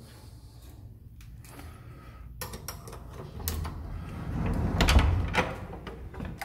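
Wooden apartment door being unlocked and opened: a series of sharp clicks and knocks from the latch and handle, with a low thump about five seconds in.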